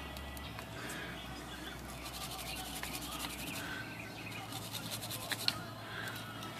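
Wire brush scrubbing rust off a small rusty metal collar and screw from a typewriter platen knob: a steady scratchy rubbing. A low hum runs under it and stops about three and a half seconds in.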